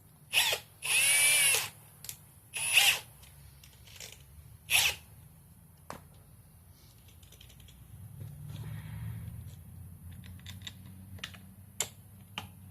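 Cordless brushless hammer drills run in short trigger bursts, about five in the first few seconds. The longest lasts under a second, its motor whine rising and falling. Scattered clicks and a low rumble follow.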